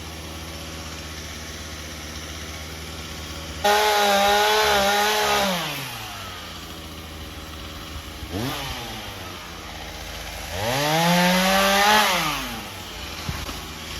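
Two-stroke chainsaw idling, then revved hard for about two seconds, dropping back, blipped briefly, and revved again for about two seconds before easing back to idle.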